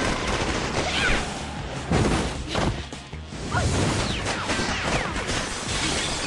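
Action-film fight soundtrack: music with repeated hits and crashes, the loudest about two seconds in, and a few swishes.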